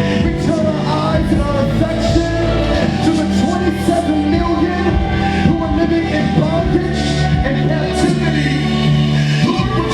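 Music: a singing voice over sustained chords, with occasional percussion hits.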